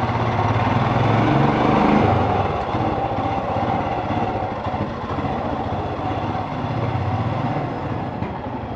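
Royal Enfield Scram 411's single-cylinder engine running at low speed as the motorcycle is ridden slowly, rising a little about two seconds in and then settling.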